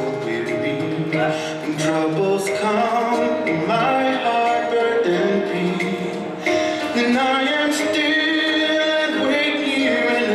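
Song with male and female singing over instruments, playing as dance music.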